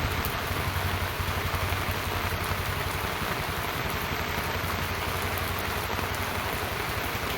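Steady rain falling, with a low mechanical hum running underneath.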